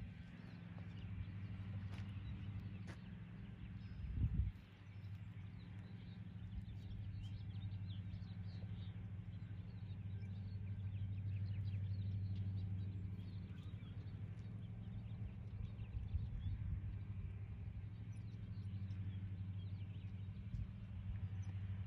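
Outdoor rural ambience: a steady low hum, with birds chirping now and then and a single low thump about four seconds in.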